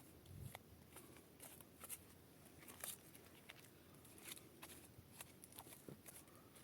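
Near silence with faint, irregular clicks and crackles, a few each second.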